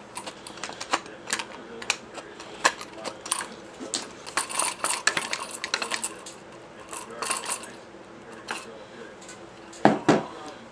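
Small metal clicks and clinks, scattered irregularly, of a long screwdriver and the coil springs of a Speed Feed shotgun stock's shell carrier being handled. Two louder knocks come near the end.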